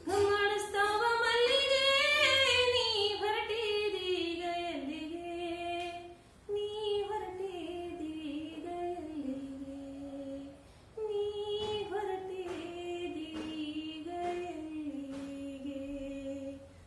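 A woman singing a Kannada bhavageete (light poetic song) solo and unaccompanied, in three long phrases with short breaks between them, the last one settling on a low held note near the end.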